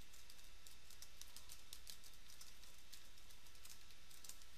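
Computer keyboard typing: a steady run of quick, faint keystrokes.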